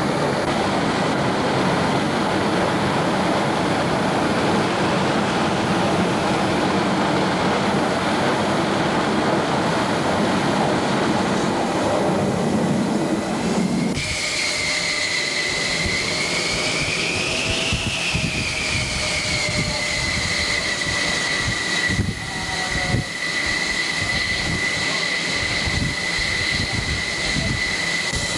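Jet aircraft engines: a heavy, dense roar for the first half, then, after an abrupt cut about halfway, a high turbine whine that rises and falls once and then holds steady.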